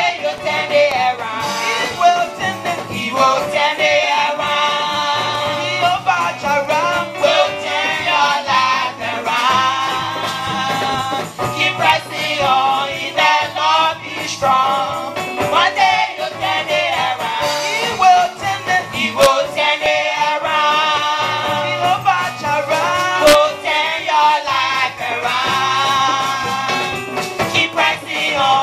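Praise and worship song: singing over instrumental accompaniment with a steady bass and percussion.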